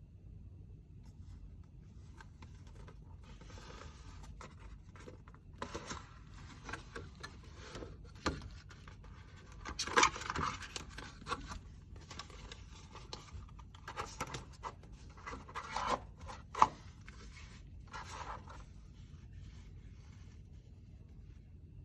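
Hands unpacking a phone case and its packaging: irregular rustling and scraping with a few sharp clicks or taps, the loudest about ten seconds in and again near sixteen seconds.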